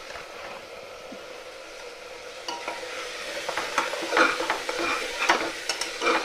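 Onion-tomato masala with red chilli powder sizzling in a pressure cooker, with a metal spatula scraping and clinking against the pot as it is stirred from about two and a half seconds in.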